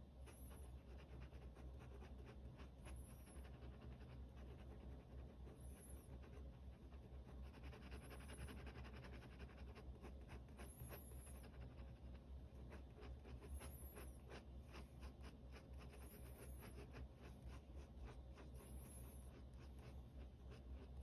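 Faint scratching of a pen on sketchbook paper in quick, short strokes, as hair is hatched in.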